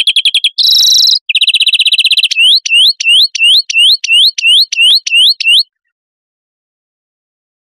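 European greenfinch song: a rapid trill, a short buzzy wheeze, a second trill, then a run of about ten rising whistled notes at roughly three a second.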